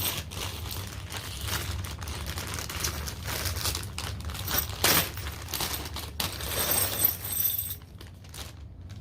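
Small metal screws clinking and rattling as they are handled out of a plastic hardware bag, with crinkling and two sharper knocks about five and seven seconds in.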